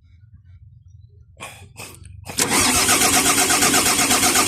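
Volvo EC210BLC excavator's D6D diesel engine starting: the sound comes in suddenly about two seconds in and keeps running steadily. It catches now that air has been bled out of the fuel system, which was why it would not start.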